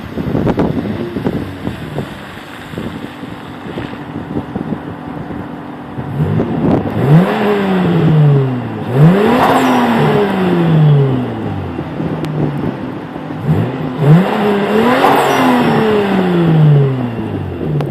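Turbocharged Hyundai Tiburon V6 engine heard through its exhaust, idling and then revved three times: two revs back to back about six seconds in and one more near the end, each climbing quickly and falling back slowly.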